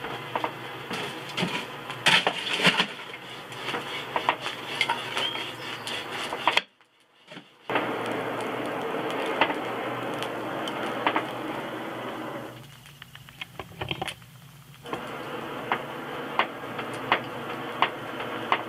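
Charcoal forge fire being blown by a hand bellows: a steady rush of air and fire with scattered sharp crackles and clicks. The sound cuts out for about a second a third of the way in.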